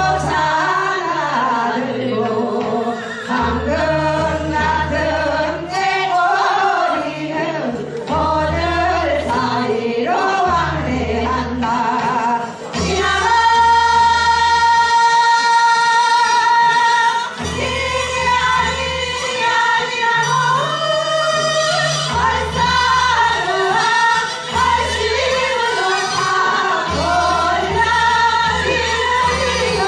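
A singer performing a song over musical accompaniment with a repeating bass line. Roughly halfway through, one note is held for about four seconds.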